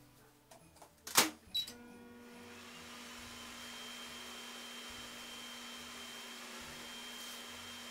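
Over-the-range microwave: the door is shut with a loud clack about a second in and a keypad beep sounds just after. The oven then starts and runs with a steady hum and fan noise as it heats the food.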